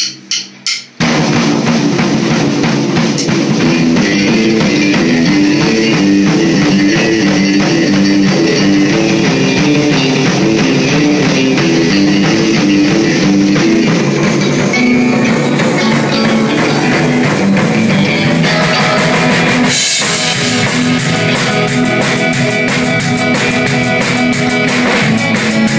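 Live rock trio of drum kit, electric guitar and electric bass playing a song together, entering all at once about a second in after a few sharp clicks. About twenty seconds in, the cymbals get much louder and busier.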